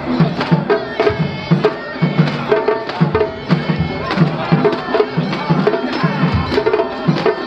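Japanese festival hayashi music from the float's musicians: a steady taiko drumbeat about twice a second under a high, sustained melody line.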